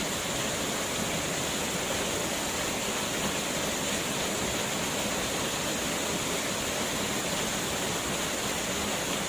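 Waterfall: falling water pouring and splashing as a steady, even rush.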